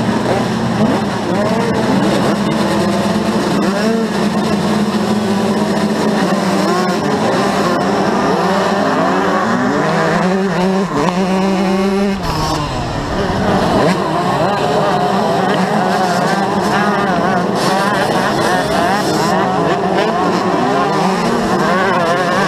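Several motocross dirt bikes running hard together as a pack races off from the start, heard from a camera mounted on one of the bikes, with many engines revving up and down through the gears. The nearest bike's steady engine note drops about halfway through.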